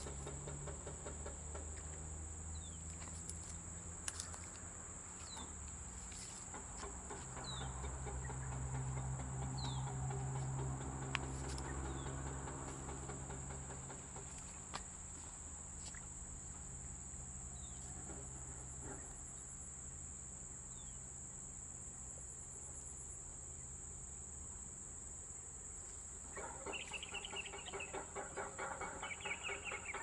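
Steady high-pitched insect drone, with short falling bird chirps scattered through. Near the end a rapid, rhythmic animal call sets in.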